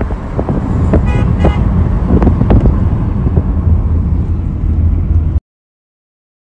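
Highway traffic with a heavy, loud rumble of passing vehicles, and a vehicle horn tooting briefly about a second in. The sound cuts off abruptly about five seconds in.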